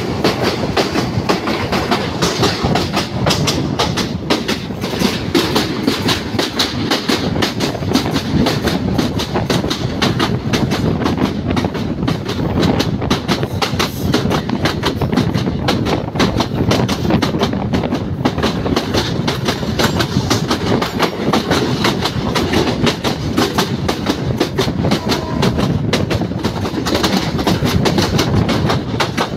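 Passenger train on the move, its steel wheels clattering steadily over the rails in a loud, continuous run of clicks and rumble.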